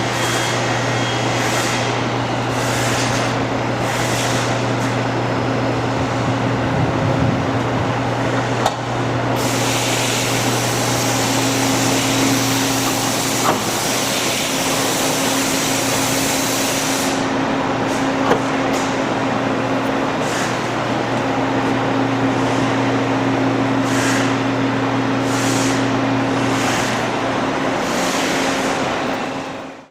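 CNC cardboard core cutting machine running: a steady low motor hum with a higher steady tone above it, broken by short hisses every second or so and one longer hiss of about seven seconds in the middle.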